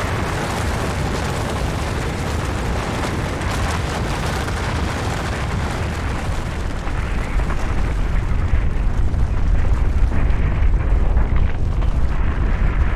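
Avalanche: a continuous deep rumble of rushing snow, swelling louder about seven seconds in as the low rumble builds and the higher hiss thins out.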